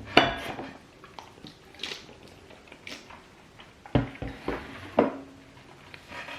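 Dishes and cutlery clattering: a string of sharp knocks and clinks, the loudest just at the start and two more around four and five seconds in.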